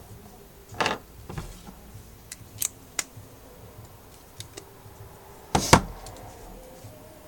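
Small hand tools and phone parts handled on a repair bench during an iPhone 6s screen replacement: a scatter of sharp clicks and light knocks, the loudest about a second in and a quick double knock just before six seconds.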